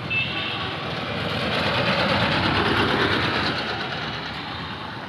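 Engine noise of a passing motor vehicle, a rushing rumble that swells to its loudest a little past halfway and then fades.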